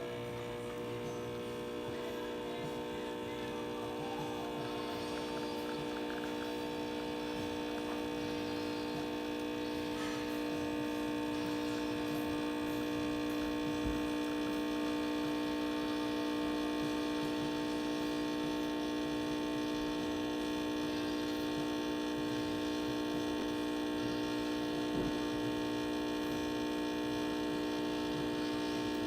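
Pasquini Livia 90 espresso machine's vibratory pump running steadily with an even buzzing hum while pulling a test shot of espresso.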